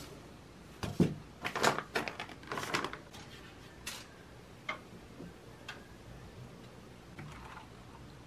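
Handling noises: a sharp knock about a second in, then a quick run of clicks and rustling, then a few single clicks about a second apart.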